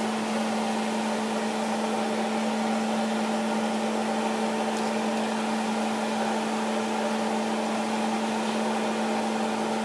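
A steady motor hum with a constant low tone and an even hiss over it, like a kitchen fan or appliance running.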